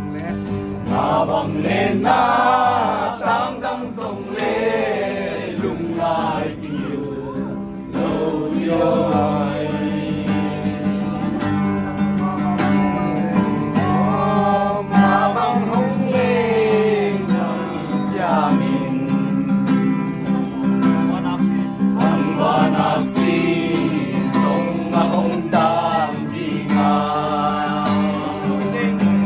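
A song: singing voices over acoustic guitar accompaniment.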